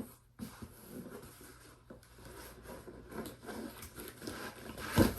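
Cardboard shipping box being handled and shifted about: light, irregular scraping and rustling, with one sharp thump near the end.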